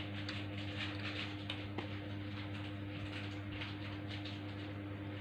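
A small child eating toasted bread: faint soft chewing and mouth noises, over a steady low hum.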